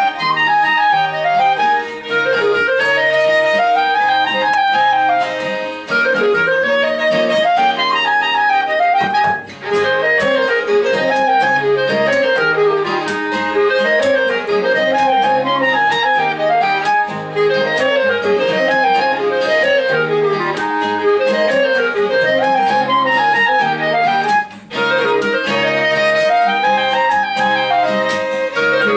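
A folk-style instrumental trio of clarinet, violin and acoustic guitar playing a flowing tune together, with the guitar giving the bass and chords under the melody. The playing drops away for a moment twice, once about nine seconds in and again a few seconds before the end.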